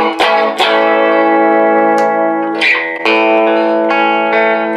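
1959 Fender Duosonic electric guitar with its original pickups, played through an amplifier: chords struck and left to ring, with a new chord about three seconds in.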